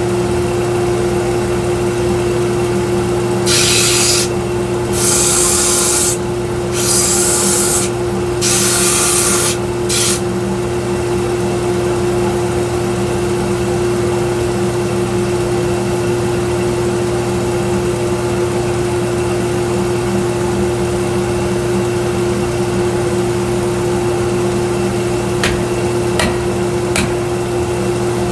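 1x42 belt sander running steadily with a constant motor hum. Five short grinding passes come about four to ten seconds in, as the work is pressed against the belt. A few light clicks come near the end.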